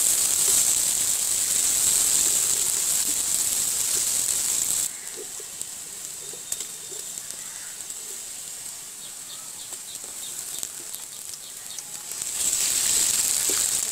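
Sliced onions and green chilies sizzling in hot oil in a metal wok. The sizzle drops suddenly about five seconds in to a quieter hiss with small pops, then grows loud again near the end.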